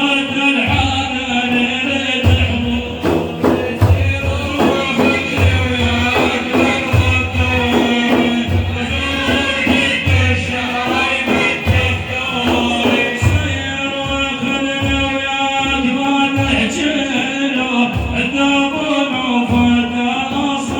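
Male solo voice singing a madih, an Islamic praise song for the Prophet, over steady hand-drum beats.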